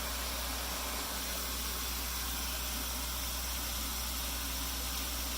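Steady hum of a pond pump motor under an even hiss of flowing water, unchanging throughout.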